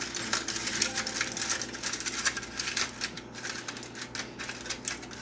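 Aluminium foil crinkling as it is folded down to cover a dish: a dense run of sharp crackles and rustles.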